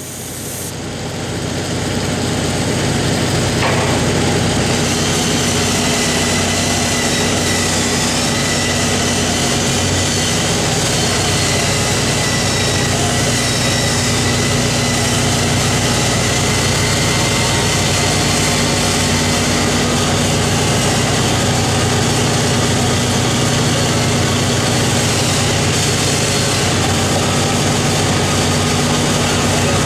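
Engine of a rig-mounted pipeline welding machine idling steadily, an even low hum with a constant higher tone above it. It swells up over the first few seconds and then holds level.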